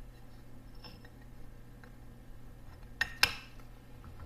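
Aluminium clutch pressure plate being fitted onto a motorcycle clutch pack, metal on metal: faint handling, then two sharp clinks about three seconds in, a quarter second apart, the second louder, as the plate seats.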